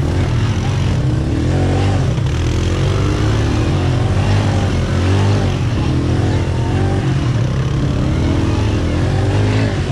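ATV engine running while riding a dirt trail, its pitch rising and falling again and again with the throttle, over a steady rushing noise.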